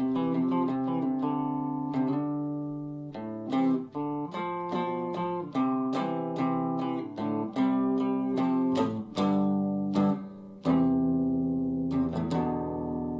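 Electric guitar played with a clean, undistorted tone: picked melodic phrases and chords, each note ringing and decaying into the next, with a short break about three-quarters of the way through.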